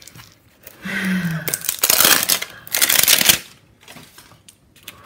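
Plastic wrapping on an L.O.L. Surprise ball crinkling and rustling as it is handled and peeled open. The noise comes in two loud stretches, from about a second in to past three seconds.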